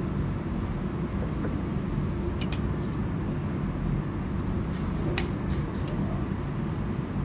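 Steady low background rumble, with a few light clinks of chopsticks and a spoon against the serving dishes, about two and a half and five seconds in.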